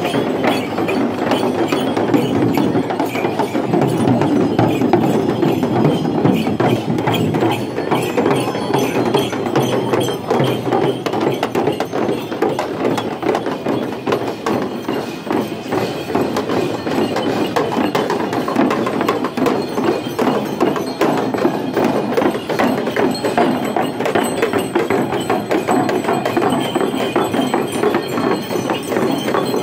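Many Nepali shamans' dhyangro frame drums beaten rapidly and continuously with sticks, a dense, unsynchronised clatter of drumbeats, over the chatter of a surrounding crowd.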